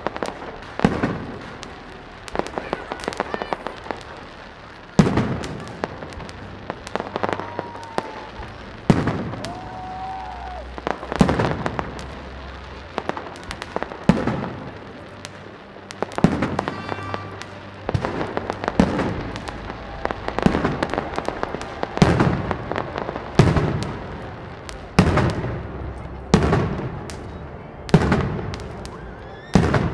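Aerial fireworks display: shells bursting in loud bangs every second or two, each trailing off in an echo, with dense crackling and rapid pops between them.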